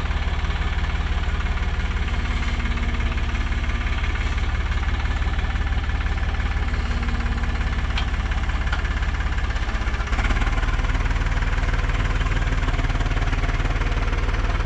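Tractor diesel engine running with a steady, fast low chugging pulse, rising slightly in level about ten seconds in.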